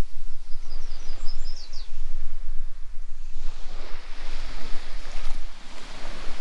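Small waves washing onto a sandy beach, with wind rumbling on the microphone; the wash grows louder about halfway through. A few short high chirps sound about a second in.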